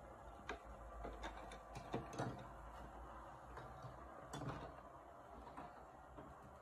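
Faint, irregular plastic clicks and knocks from a toy fishing game's plastic rods and parts being handled, a few sharp ones in the first half, over a low steady hum.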